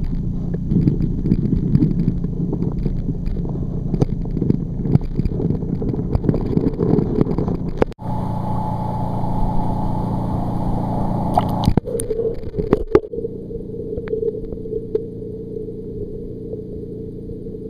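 Muffled underwater sound through a waterproof camera's housing: low water rumble with scattered knocks and crackles. About eight seconds in it cuts to a few seconds of open-air hiss, then a few knocks, and goes back underwater to a quieter low steady hum.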